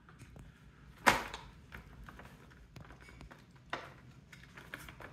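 An empty dog-food bag crinkling under a puppy's paws as it moves about on it: a sharp rustle about a second in, another near four seconds, and smaller crinkles and ticks between.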